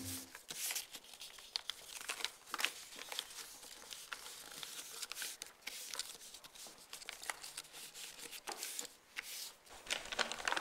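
Paper crinkling and rustling in irregular little crackles as it is handled and folded by hand, as in making paper swans.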